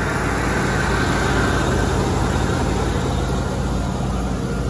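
1989 Ford E-150 Econoline van engine idling steadily, running as it should.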